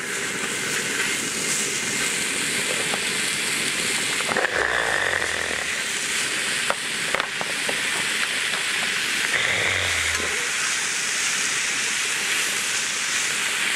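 Seasoned pork neck steaks sizzling on a hot griddle pan, a steady hiss, as more pieces are laid down with metal tongs. A few sharp clicks of the tongs against the pan.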